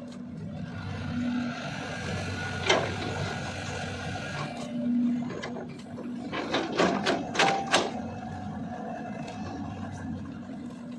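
CAT 320DL long-arm excavator's diesel engine running steadily. There is a single sharp knock about three seconds in, and a quick run of several knocks around the seven-second mark.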